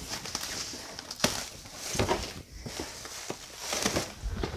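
Cardboard boxes being handled and stacked, with plastic wrap rustling and a few knocks as boxes are set down.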